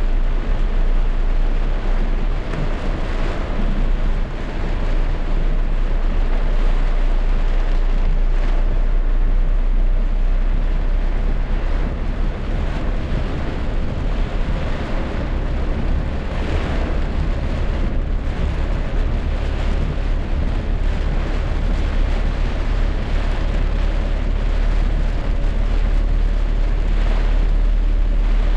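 Rainstorm: a steady, loud rush of rain and wind, with a deep continuous rumble underneath.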